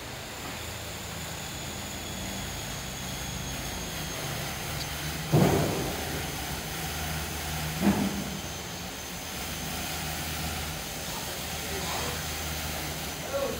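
A steady low mechanical hum, broken by two loud thuds about two and a half seconds apart near the middle as sacks and boxes of building material are handled.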